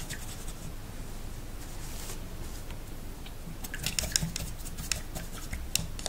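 A paintbrush being rinsed in a jar of water: soft, quiet handling at first, then a run of light clicks and scraping ticks from about three and a half seconds in as the brush is worked against the jar.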